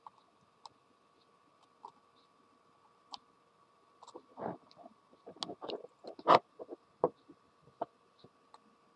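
Irregular small clicks and crackles as the bare end of a wire is touched and scraped against a tiny light bulb filament. There are a few single clicks at first, then a dense crackling run in the second half, with the sharpest crack around two-thirds of the way in.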